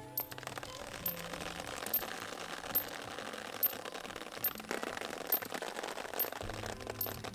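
Liquid tomato feed poured from a watering can into a strawberry hanging basket: a steady hiss of pouring that lasts nearly seven seconds.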